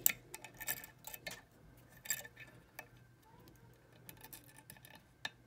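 Small irregular metallic clicks and scrapes of a lock pick and tension wrench working in the keyway of a Chicago filing cabinet lock, with the sharpest click right at the start and another about two seconds in.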